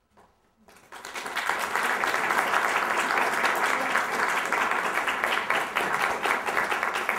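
Audience applauding: many people clapping, starting about a second in and continuing steadily.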